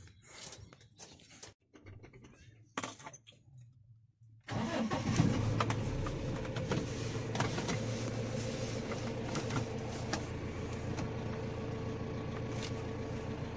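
A few scattered clicks and knocks, then about four and a half seconds in a vehicle's engine starts and settles into a steady run.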